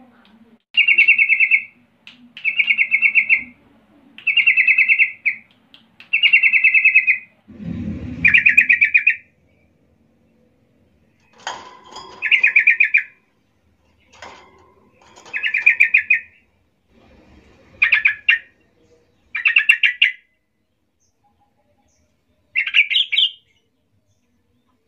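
Caged yellow-vented bulbul (trucukan) singing its short bubbly chattering phrases over and over, each about a second long. They come in quick succession at first, then with longer gaps. A dull low thump sounds about eight seconds in.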